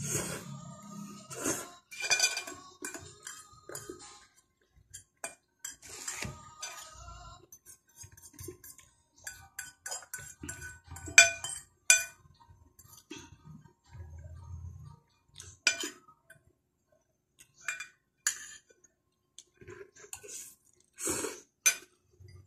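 Metal fork and spoon clinking and scraping against a dish of spaghetti while eating, in irregular sharp clicks, with the sounds of slurping and chewing between them.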